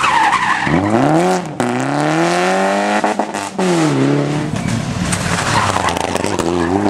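Rally car engine accelerating hard out of a tight corner, its note climbing and then dropping sharply several times as it shifts up, with tyres squealing on the tarmac.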